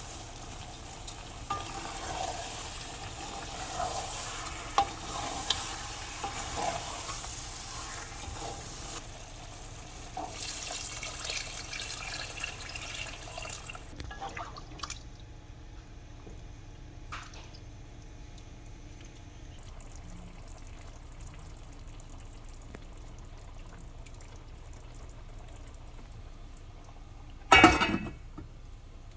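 Chicken pulao cooking in a pot: a spoon stirring with sizzling and scattered clicks, busier in the first half and quieter after. A single loud knock comes near the end.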